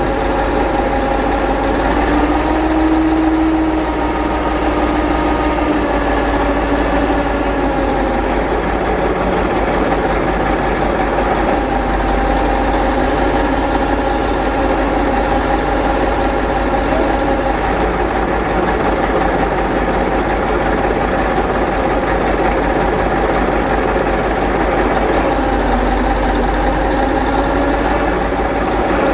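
A vehicle engine running steadily close by, probably one of the vehicles hauling the boats away, its pitch rising a little a few seconds in and easing back.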